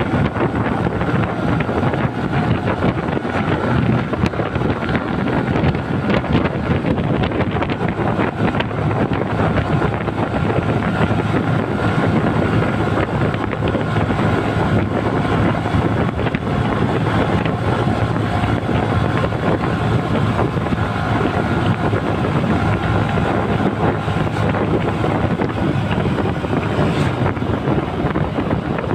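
Steady wind rushing over the microphone of a moving motorcycle, with the engine and road noise running beneath it.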